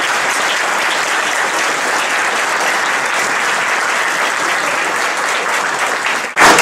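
Audience applauding steadily, breaking off abruptly near the end.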